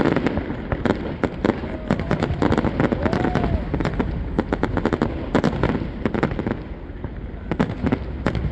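Fireworks display: many bangs and crackles going off in quick, irregular succession.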